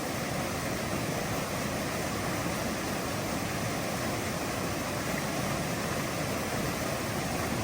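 Steady rushing of a waterfall, an even noise with no breaks.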